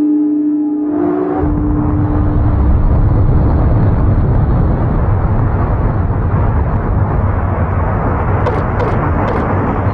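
Missile launch roar: a loud, steady rushing noise with a deep rumble that breaks in suddenly about a second in.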